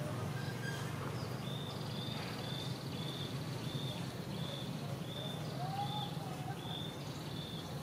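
A bird calling a short high note over and over, about twice a second, starting a second or so in, over a steady thin high insect buzz. A lower single whistle comes near the end, and a low steady rumble runs underneath.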